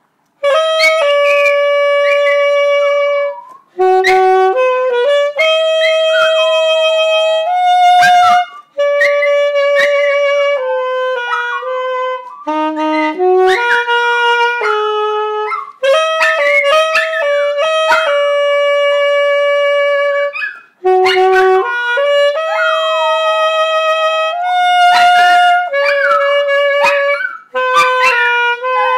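Saxophone playing a slow tune of long held notes, with a small dog howling along; the howls slide down in pitch across the notes. The playing stops briefly twice.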